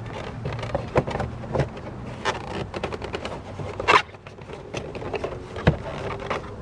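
Plastic car door trim pieces being handled and pushed back into place: an irregular run of clicks, knocks and scrapes, with a sharper knock about four seconds in.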